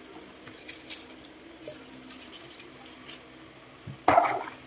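Cabbage leaves being pushed and packed into a glass food-processor bowl around the plastic blade shaft: soft rustling with light clicks against the glass, and a short louder rustle about four seconds in.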